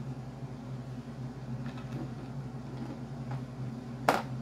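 Steady low hum of a room air conditioner running, with one short sharp click about four seconds in.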